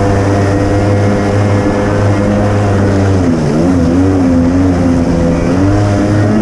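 Kawasaki JS300 stand-up jet ski's two-stroke engine running at steady high revs under way, its pitch dipping and wavering for about a second midway before settling back. The ski is slow to get up onto plane.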